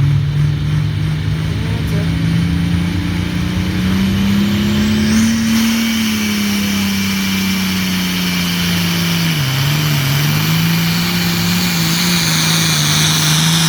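Hot farm class pulling tractor's engine running hard under load down the track. Its note climbs around four to six seconds in and then eases back, dips briefly near the middle, and steadies again. A high whine joins from about five seconds in.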